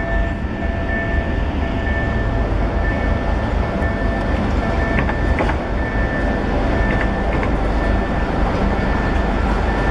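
Diesel locomotive approaching slowly, its engine a low, steady rumble, with a steady high-pitched tone over it and a few sharp clicks about halfway through.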